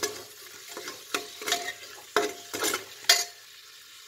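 Steel ladle scraping and knocking against a metal pot while stirring sliced onions sautéing in hot oil, with a steady sizzle underneath. The strikes come about every half second, each with a short metallic ring, and the stirring stops a little after three seconds in, leaving only the sizzle.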